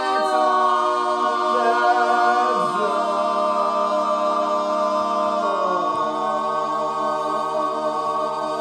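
Several voices singing a cappella in close harmony, holding one long drawn-out final chord. The chord moves to new notes about three seconds in and again about six seconds in.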